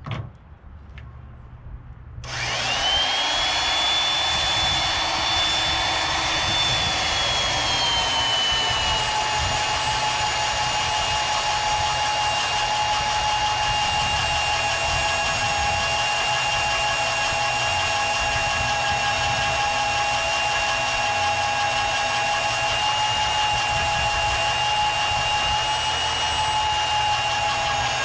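Magnetic drill (mag drill) starting up about two seconds in with a rising whine, then boring through a steel I-beam; its pitch drops a little around eight seconds in as the cutter bites into the steel, and the motor runs steadily under load.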